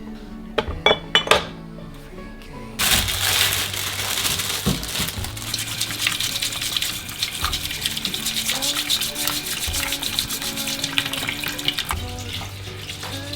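A few light knocks, then a kitchen tap is turned on about three seconds in and water runs steadily into the sink, easing off near the end.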